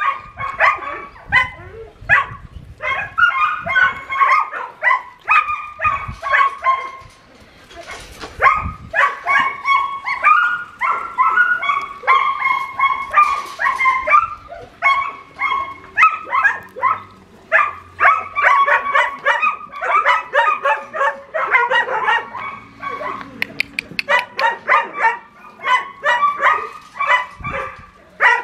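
A dog barking in rapid, high-pitched runs, a few barks a second, with short breaks between runs.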